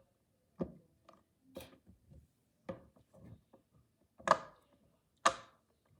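Plastic fidget toys being handled and played with: irregular small clicks and knocks, with two louder knocks near the end.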